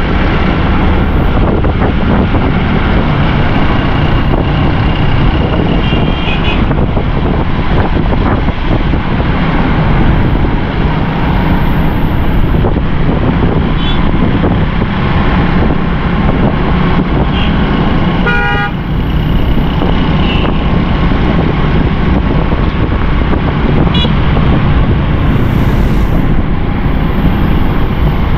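Steady rush of wind and traffic noise from a motorcycle riding through traffic on a wet road, with a few short vehicle-horn toots. The clearest toot comes about two-thirds of the way through.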